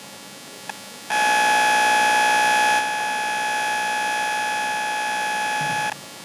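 A steady, unwavering electronic buzzer-like tone, switching on abruptly about a second in, dropping slightly in level near the three-second mark, and cutting off just before the end.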